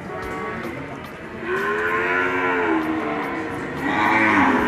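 Cattle mooing: several long calls overlap, each rising and then falling in pitch, and they grow louder, the loudest near the end.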